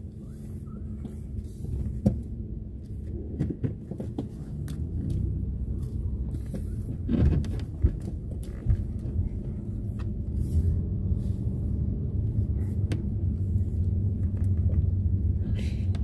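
Low, steady rumble of a car driving, heard from inside the cabin, growing a little louder in the second half. A few short clicks and knocks sound over it.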